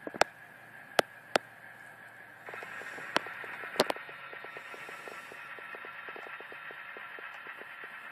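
Model railroad freight cars rolling on the track. A few sharp clacks come in the first four seconds, then a steady rolling noise with quick, even clicking of the wheels over the rail joints.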